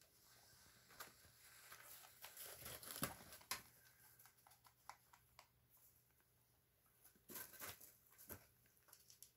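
Faint rustling and scattered light clicks of pet rabbits moving about in wood-shaving bedding, in two short flurries with a soft bump between them.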